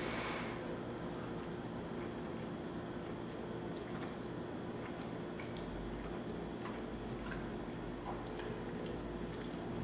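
Close-up eating sounds: spaghetti noodles slurped into the mouth at the start, then chewing with small wet clicks and smacks from a mouthful of cheesy chicken spaghetti casserole, over a faint steady hum.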